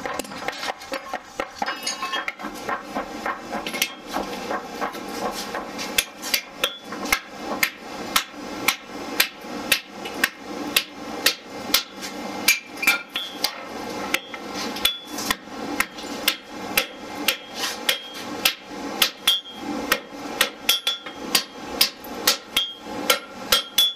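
Hammer blows on red-hot steel on an anvil, forging a knife blank. Quick, uneven strikes come for the first few seconds, then steady blows at about two a second, each with a short metallic ring. A steady low hum runs underneath.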